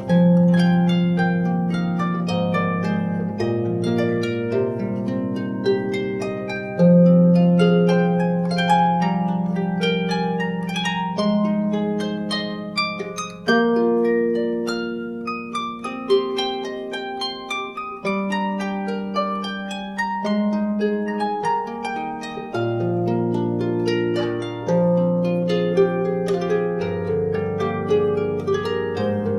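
Solo harp, handmade by Alexander Anushat, playing a slow melody: plucked notes over low bass notes that ring on for a few seconds each.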